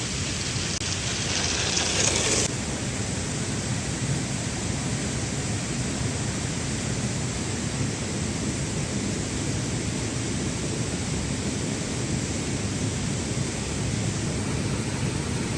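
Steady rushing noise with no distinct tones, a brighter hiss in the first two and a half seconds.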